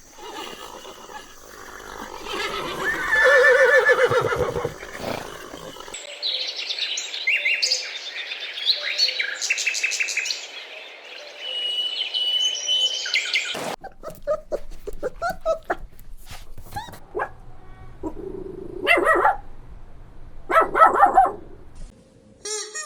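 A run of different animal calls cut one after another: pitched calls in the first few seconds, then a stretch of high, rapid chirping, then scattered clicks and two short louder calls near the end.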